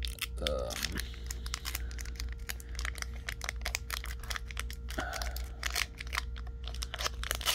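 The foil wrapper of a vintage Pokémon booster pack crinkling and tearing as it is peeled open slowly and gently, in a dense run of small crackles.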